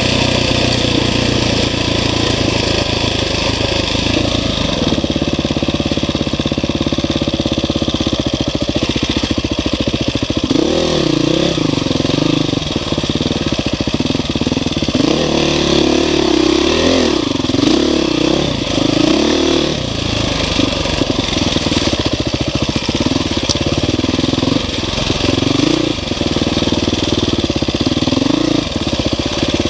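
Off-road motorcycle engine running under way, its revs rising and falling again and again as it works along a dirt trail, busiest about a third to two thirds of the way through.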